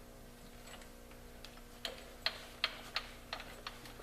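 A jack being let down under a Jeep's rear, giving a run of about seven sharp clicks, two to three a second, starting about a second and a half in.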